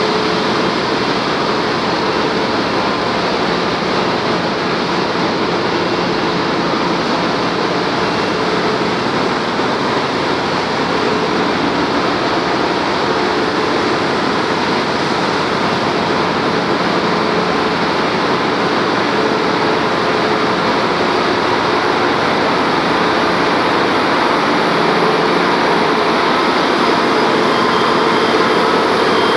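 Ship's engine-room machinery running: a loud, steady din with a faint hum in it and no pauses.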